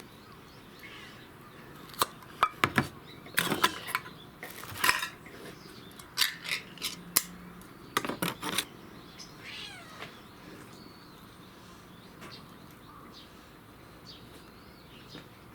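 Domestic cat making short meows while eating, with a scatter of sharp clicks and knocks from its food dish, most of them in the first half.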